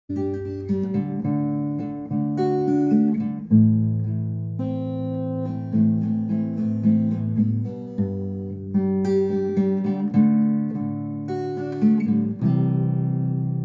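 Background music: acoustic guitar strumming and plucking chords, changing chord every second or two.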